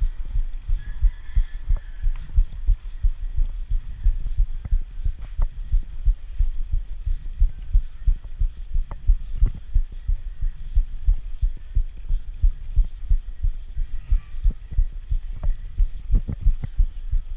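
Dull low thumps, about two a second, on the microphone of a camera mounted on the handlebars of a mountain bike being ridden uphill, with a few faint clicks.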